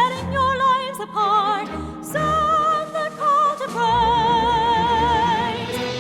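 Christian pop song: a vocal sung with strong vibrato over instrumental accompaniment, holding one long note for about two seconds near the end.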